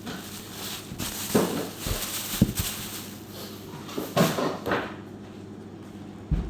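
Kitchen handling sounds: a series of separate knocks and clatters as things are picked up and set down, the sharpest one near the end.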